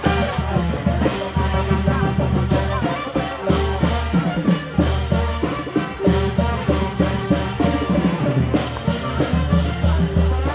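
Music with drums and brass instruments playing at a steady beat.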